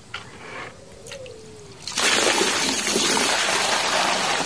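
A thick stream of water poured into a plastic toy dump truck's bed, splashing onto the gravel and puddle. It starts suddenly about two seconds in and then runs steadily and loudly.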